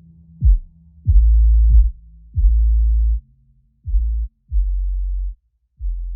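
Electronic background music: deep bass notes, each opening with a sharp kick, growing quieter toward the end.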